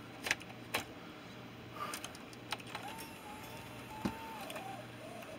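Small plastic clicks and handling knocks as an 8mm tape cassette is fitted into the open tape compartment of a Sony DCR-TRV520 Digital8 camcorder, a few sharp ticks spaced irregularly over a low steady hum. A faint wavering whine runs for about two seconds in the middle.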